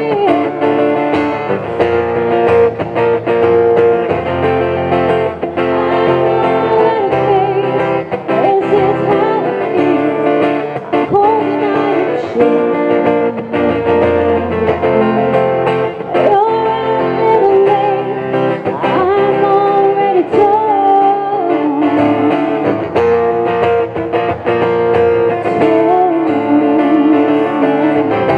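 A woman singing live through a microphone, accompanied by an acoustic guitar.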